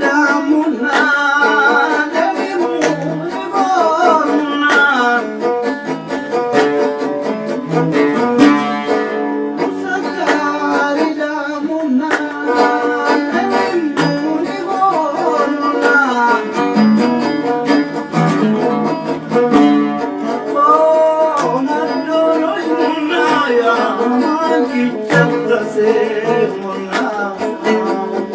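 A Nubian song played on plucked oud and tanbour (Nubian lyre), a continuous flowing melody of plucked strings.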